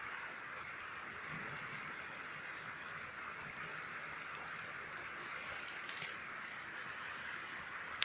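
Small campfire crackling, with a few sharp pops spread through over a steady hiss.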